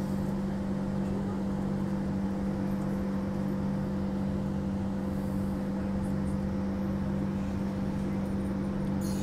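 Steady hum inside a Transperth A-series (Walkers Limited) electric multiple unit: a constant low tone with a fainter higher tone over a soft even rumble, holding the same pitch throughout.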